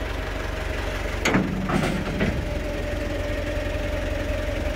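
Old telehandler's engine running steadily after starting, kept going by a cheap aftermarket fuel pump fitted because the original pump was weak. A steady whine rides over the engine, and a few short clunks come about a second and two seconds in.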